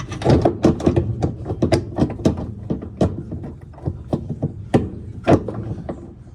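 Irregular clicks and knocks, several a second, of tools and metal parts being handled during repair work on a washer's gear case.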